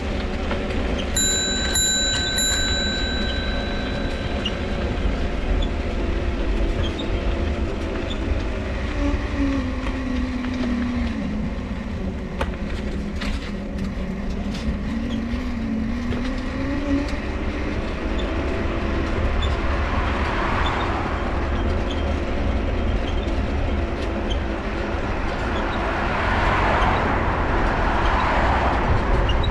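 Mifa folding bike being ridden, with its dynamo whining: the whine's pitch dips and rises again midway as the bike slows and picks up speed. Over it run the rolling rumble and the squeaky crank, with a brief high squeal early on.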